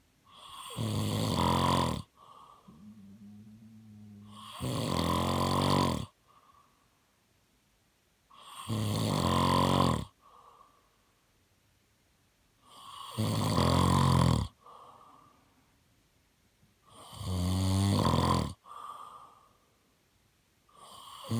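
A man snoring. Each snore lasts about a second and a half and comes about every four seconds, with softer, shorter breathing sounds between them.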